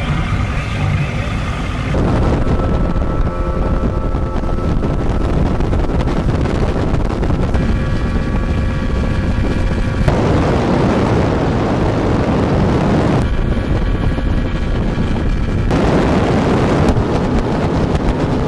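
A motorboat engine running steadily under way, with wind rushing over the microphone. The mix switches abruptly several times between a steady engine drone and mostly wind noise.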